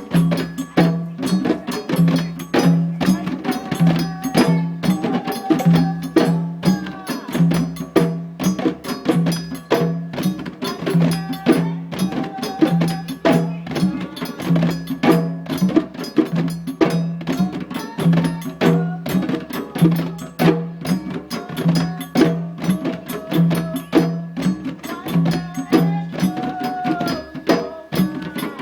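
Djembe drumming: fast, dense hand strikes in a driving rhythm over a steady low note that pulses about once a second.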